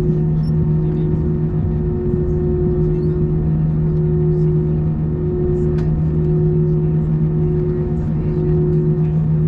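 Steady drone inside the cabin of an Airbus A319 on the ground: a low rumble with a strong steady hum and a higher tone that dips briefly every second or so, with a few faint ticks.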